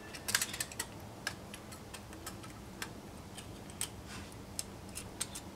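Light, irregular metallic ticks: a thin feeler gauge blade tapping and catching against a machinist's straight edge laid across a cylinder block deck, probed along its edge for a gap. A quick cluster of ticks near the start, then single ticks about every second.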